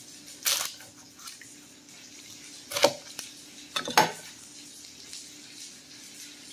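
Chef's knife cutting through an onion onto an end-grain wooden cutting board: three sharp knocks of the blade on the wood, the last two about a second apart and the loudest. Under them is a faint steady fizzing from potatoes frying in butter and oil.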